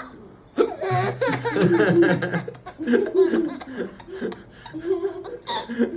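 Laughter, a low adult laugh about a second in, then higher-pitched voice sounds from the baby.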